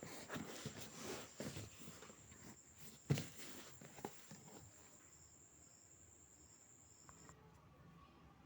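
A steady high-pitched insect trill that cuts off abruptly about seven seconds in. Under it are faint shuffling and handling noises, with one sharp knock about three seconds in.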